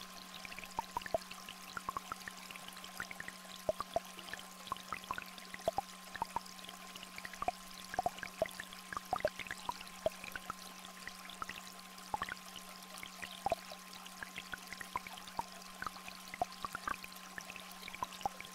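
Two steady electronic tones, one low and one higher, held without change over a small stream trickling and rain drops pattering at irregular intervals.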